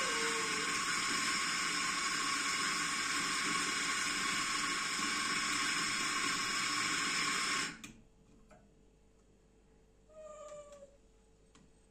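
Electric espresso grinder running steadily as it grinds coffee beans into a portafilter, then cutting off abruptly about eight seconds in at the end of its timed dose. A short high call follows a couple of seconds later.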